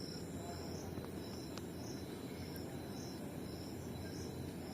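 A cricket chirping steadily, about two chirps a second, over a low hum of room noise, with a couple of faint clicks.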